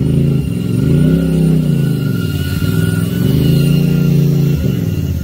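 Off-road vehicle engine revving up and easing off twice, the pitch climbing and falling each time, with a thin steady whine above it.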